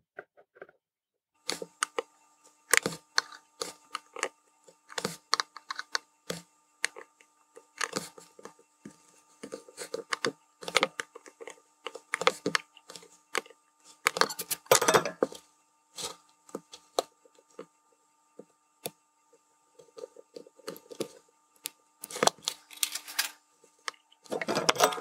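Light, irregular clicks and taps of fine metal tweezers against a circuit board and the tabletop as tiny surface-mount resistors are picked up, set on their pads and soldered in place. Under them runs a faint steady hum of several tones.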